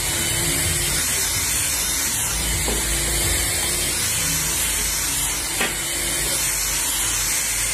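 Handheld hair dryer running steadily with a constant airy hiss, and one short click about five and a half seconds in.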